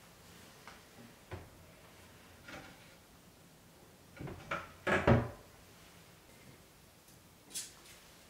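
Small wooden under-sink cabinet door being opened and shut, with a few light clicks and then a cluster of wooden knocks, the loudest about five seconds in.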